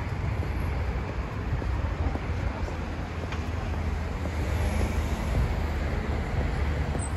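Steady street ambience: a low rumble of road traffic mixed with wind on the microphone.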